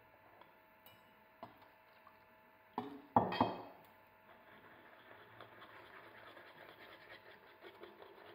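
A wire whisk clinking and scraping in a small metal saucepan as it stirs milk into an egg, sugar and flour custard base. A few light taps are followed by a loud ringing clink about three seconds in, then a steady run of quick scraping ticks as the whisking goes on.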